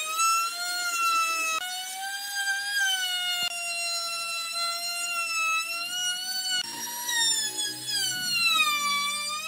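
Handheld trim router running at high speed as it cuts along the edge of a round wooden tabletop. The high whine wavers in pitch, dipping and rising as the bit takes load, and jumps abruptly twice.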